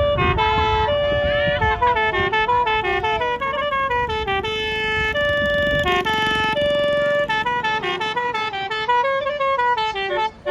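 Bus telolet basuri horn, a multi-tone electric bus horn, playing a melody of stepped notes with a few sliding ones, running without a break.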